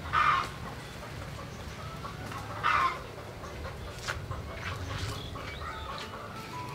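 Chickens clucking, with two short louder calls, one near the start and one just under three seconds in. A few sharp clicks come through as garlic flower stalks are snapped by hand.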